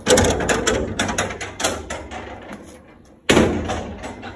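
Old iron gate being unbolted and pulled open, its metal bars and bolt rattling and clanking for about two seconds, then a second hard metal clang a little after three seconds that rings on briefly.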